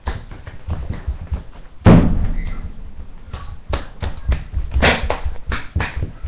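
Thumps and taps of a person crawling and shifting on hands, knees and bare feet across a hard floor, close to the microphone. A heavy thump comes about two seconds in and another about five seconds in.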